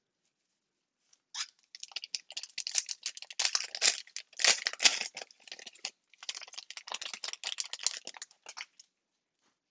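Foil trading-card pack wrapper being torn open and crinkled: a dense crackling that starts about a second in and stops about a second before the end.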